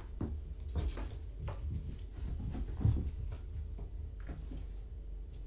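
Kittens wrestling and scampering on the floor: a run of soft thumps and knocks, the loudest about three seconds in, over a steady low hum.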